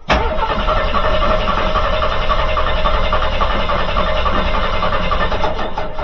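Jeep CJ7 engine being cranked by its starter motor, boosted by a lithium jump starter pack, for about six seconds without catching, then stopping. The Jeep has sat unstarted all winter on a dead battery, and the owner thinks the hydraulic lifters need to pump up before it will fire.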